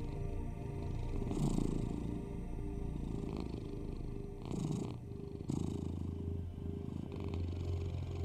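A domestic cat purring steadily, its rumble swelling every second or so, over a low steady hum.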